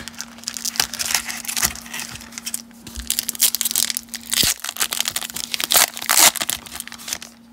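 Baseball card pack wrapper being torn open and crinkled by hand, a dense, irregular run of crackles and rustles with short pauses.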